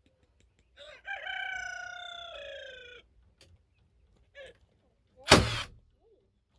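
A rooster crows once, a single drawn-out call about a second in lasting some two seconds. About five seconds in comes one loud, sharp shot from a nail gun driving a nail into wood.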